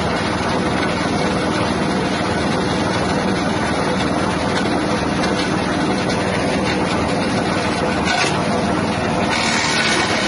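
Wood-bark shredder driven by a 6.5 hp petrol engine, running steadily.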